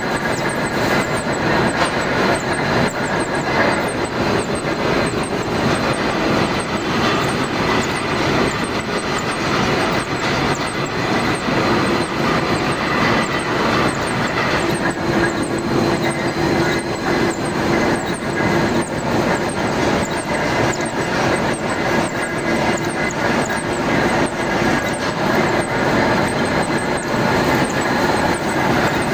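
Machine tool running steadily while machining a steel shaft, a constant mechanical hum and whir with a tone that strengthens about halfway through.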